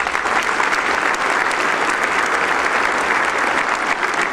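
A large seated audience applauding, steady hand-clapping from many people at once.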